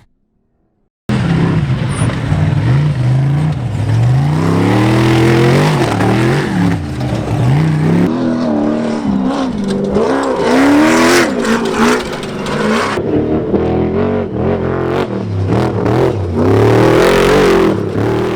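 Off-road race vehicle engines revving hard and accelerating, the pitch climbing and dropping again and again through gear changes, with a few abrupt switches between vehicles. The first second is silent.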